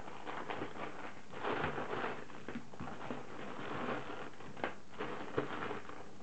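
Rustling handling noise as a headset cable and its connector are taken out and handled, with a few light clicks, two of them sharper near the end.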